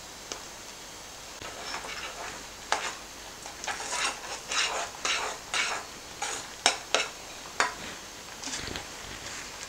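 A utensil stirring and scraping in a pan as ground chana dal powder is mixed into sugar syrup for laddu. The strokes are irregular and begin about a second and a half in, with a few sharp knocks against the pan.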